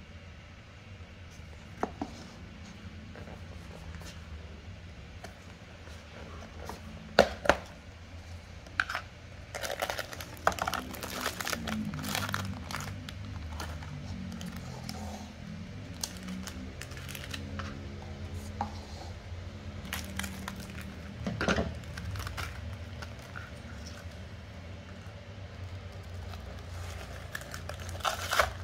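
Plastic and foil food packaging crinkling and rustling in the hands as an instant porridge cup is unpacked, with scattered sharp clicks and crackles from the lid, spoon and sachets.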